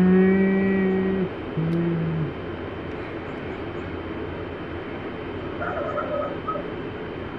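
An animal call held on one steady pitch for about a second, then a second, shorter call, followed by a steady low rumble.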